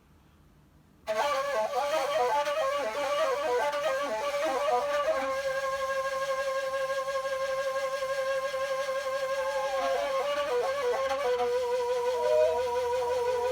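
Kaval, the Turkish end-blown shepherd's flute, playing a solo improvisation: it comes in about a second in with quick ornamented runs, then holds one long steady note and, near the end, settles on a slightly lower held note.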